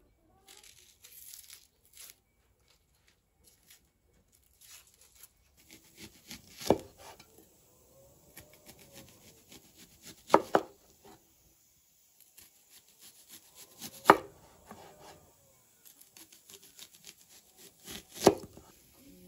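Kitchen knife slicing a red onion on a wooden cutting board: four sharp knocks of the blade striking the board, a few seconds apart, with softer cutting and rustling of onion skin between.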